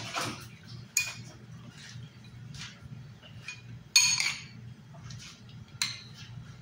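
Metal spoon clinking against a glass bowl while stirring eggplant sticks in beaten egg: scattered taps, the sharpest about a second in, at about four seconds and near the end. A low steady hum runs underneath.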